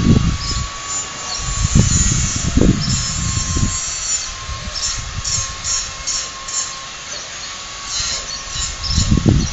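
Wind buffeting the microphone in irregular gusts, heaviest at the start, in the middle and again near the end. Under it runs a faint steady high whine, and a quick run of short high chirps comes in the middle.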